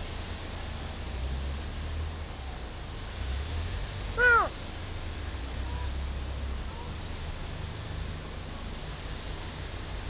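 A crow gives a single short caw, falling in pitch, about four seconds in, over a steady low background rumble.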